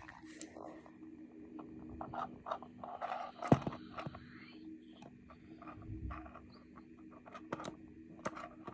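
Small clicks and scrapes of hands working rubber bands with plastic bracelet-making tools, with one sharper click about three and a half seconds in, over a faint steady hum.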